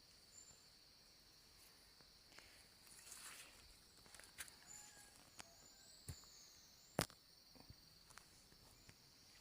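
Faint forest ambience: a steady high insect drone, with a few short high chirps, scattered small clicks and rustles, and one sharp click about seven seconds in.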